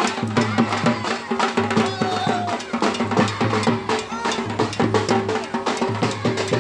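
Dhol barrel drums beaten fast and continuously by several drummers, many strikes a second, with low pitched notes sounding underneath.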